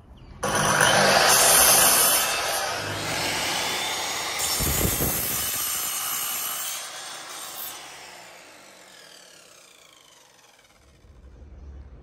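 Compound miter saw starting up with a sudden loud whine and cutting through a pine board, then the blade winding down, its pitch falling as it coasts to a stop.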